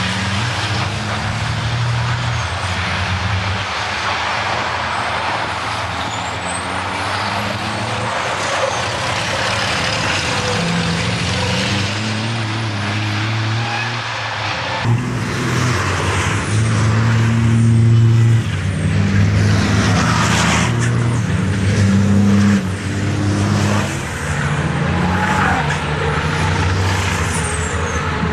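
Racing trucks' heavy diesel engines running hard as they pass through a corner one after another. The engine notes step up and down, with short bursts of hiss in the second half.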